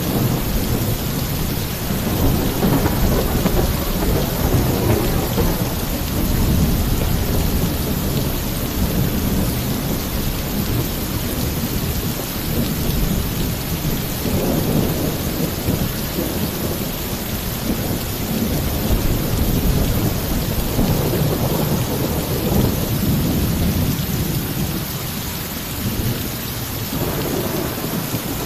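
Torrential rain pouring steadily on a roof, with rolling thunder rumbling low underneath in several long swells.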